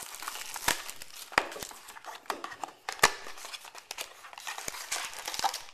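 Plastic and foil wrapping of trading-card packs crinkling and tearing as it is pulled open by hand, a dense run of irregular crackles and sharp snaps.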